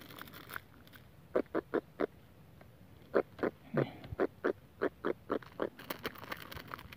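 Small giant trevally grunting while held out of the water: a run of short croaking grunts, three at first, then a quicker series of about a dozen, roughly three a second.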